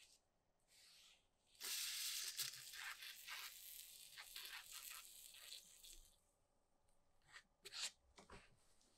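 Faint brush strokes on metal parts, then a liquid sprayed in a thin jet onto two small steel parts of a monkey wrench. The spray hisses with a crackle through it for about four seconds, and a few brief clicks follow near the end.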